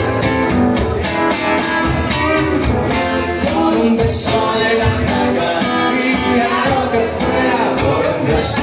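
Live acoustic guitar strummed steadily while a man sings into a microphone.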